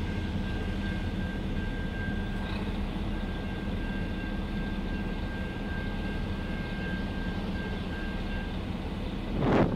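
A diesel train engine running steadily, with a thin steady whine over it that stops about a second before the end. Near the end a gust of wind hits the microphone.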